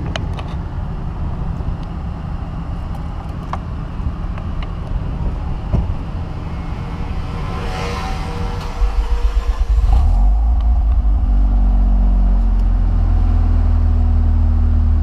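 Mazda RX-7 FD3S's twin-rotor 13B-REW rotary engine idling steadily at about 1,000 rpm, running normally on the stock ECU after its wiring was repaired. About nine seconds in, the engine sound becomes louder and heavier, heard from inside the cabin.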